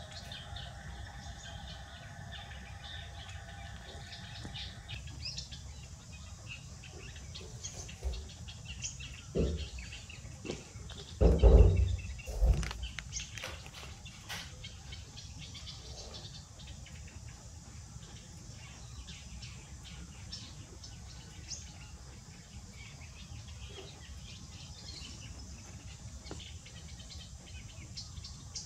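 Outdoor ambience: birds chirping on and off over a steady low rumble, with a steady hum that stops about five seconds in. A few loud, dull thumps come about ten to twelve seconds in.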